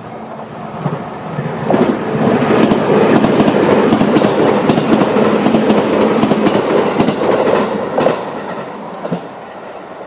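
JR 211 series electric multiple-unit train passing over a level crossing. Its running noise builds over the first two seconds, stays loud for about six seconds, then eases near the end, with the wheels clacking over the rail joints.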